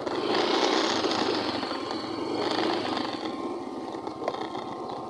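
Small motorcycle engine running as the bike rides slowly along a dirt track. It swells about a third of a second in, then eases off over the next few seconds.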